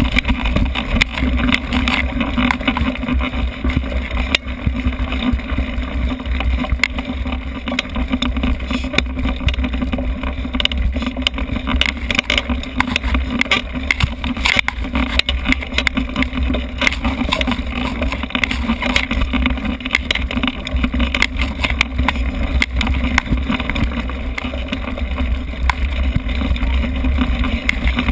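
Wind rumble over a GoPro camera riding on a mountain bike, with frequent rattling knocks as the bike and mount jolt over a bumpy dirt and grass trail.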